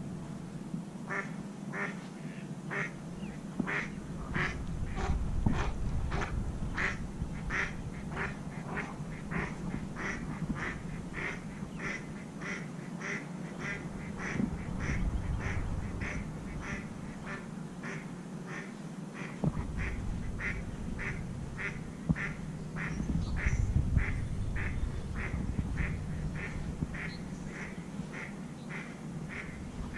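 Footsteps on sand at a steady walking pace, about two steps a second, each step a short squeaky crunch. Low rumbles of wind on the microphone come and go underneath.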